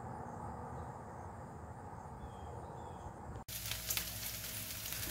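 A faint, steady outdoor background for about three and a half seconds, then an abrupt cut to strips of bacon sizzling and crackling on a stovetop griddle.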